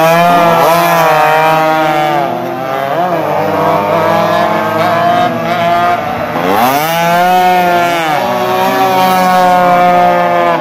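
Two-stroke 115 cc racing motorcycles accelerating hard past through a corner, several engines overlapping. Engine pitch climbs sharply at the start as two bikes go by, and again about six and a half seconds in as another follows, then holds high.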